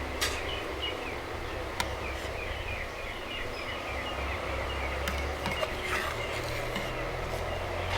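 Birds chirping over a steady low rumble, in many short, repeated, falling notes that are busiest in the first half.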